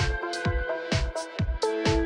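Electronic background music with a steady kick-drum beat, about two beats a second, over held synth notes.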